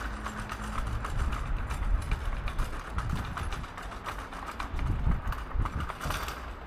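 Footsteps of a person walking on a paved street, a run of short steps over a low traffic rumble.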